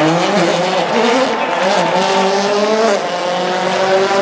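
Rally car engine revving hard under acceleration, its pitch climbing and falling through the gears, with a brief lift about three seconds in.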